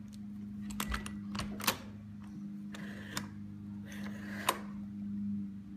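A series of sharp clicks with some rubbing and scraping in between, as the August Smart Lock's turning knob and deadbolt are worked by hand, heard over a steady low hum.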